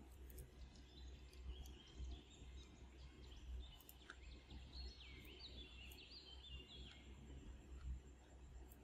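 Near silence: a faint low background hum, with faint bird-like chirps in the middle and a few soft clicks.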